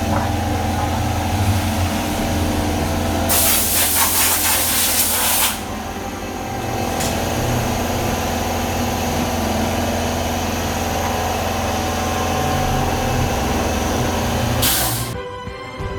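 Steady hum of a motor-driven workshop machine, with a loud burst of hissing air about three seconds in that lasts about two seconds and a shorter burst near the end, after which the hum cuts off suddenly.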